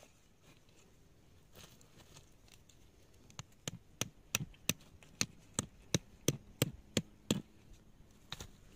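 A rock hammering a metal hook tent stake into stony ground: about a dozen sharp strikes, roughly three a second, starting about three and a half seconds in.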